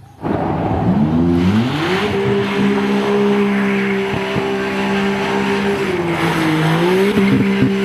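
Maserati MC20's twin-turbo V6 held at high revs during donuts, with tyres squealing and spinning. The engine note climbs about a second in, holds steady, then sags briefly near the end and picks up again.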